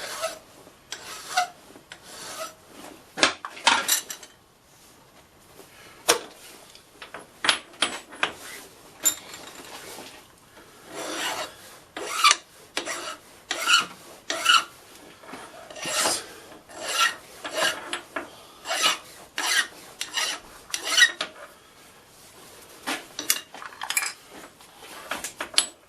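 A hand file pushed in repeated forward strokes along the edges of a stainless steel block, deburring it. The strokes come in irregular runs, with a few short pauses between them.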